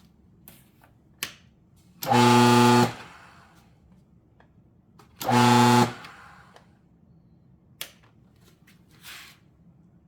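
Mahlkönig coffee grinder's electric motor switched on twice in short pulses of under a second each, with a steady hum that starts and stops abruptly, after a service to cure a noise problem. A few sharp clicks fall between the runs.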